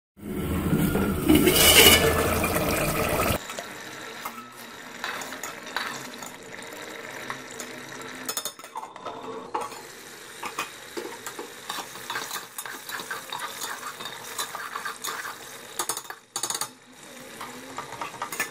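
Mutton liver in yogurt gravy simmering in an aluminium pot: a steady bubbling sizzle with small clinks of the metal pot. A louder noisy stretch fills about the first three seconds.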